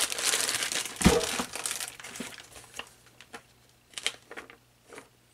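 Plastic bag crinkling as a bagged propane hose is handled, with a single thump about a second in; after that, only soft scattered rustles.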